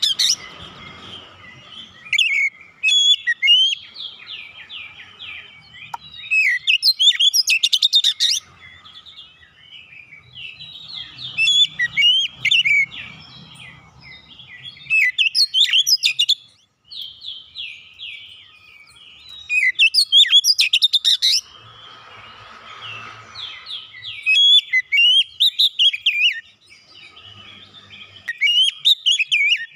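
Oriental magpie-robin singing continuously: a fast, varied run of whistled and chattering phrases, broken several times by loud, rapid rattling bursts.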